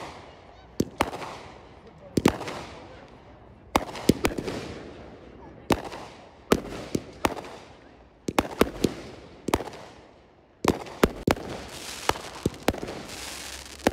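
Aerial fireworks bursting: sharp bangs come about once a second, sometimes two or three in quick succession. Each bang trails off in a fading crackle and echo.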